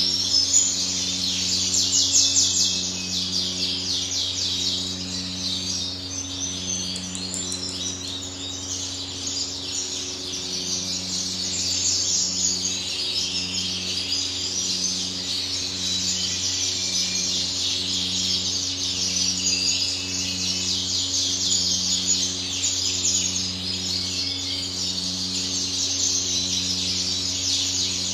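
Many small caged birds chirping and twittering without a break, over a steady low electrical hum with a faint pulsing drone underneath.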